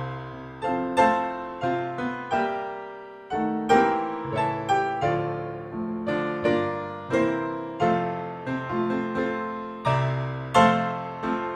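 Slow solo piano music: single notes and chords struck one after another, each left to ring and fade.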